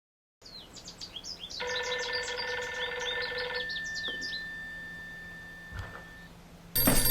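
Small birds chirping, many short quick chirps, with a steady multi-pitched tone for about two seconds in the middle. Just before the end a telephone starts ringing loudly.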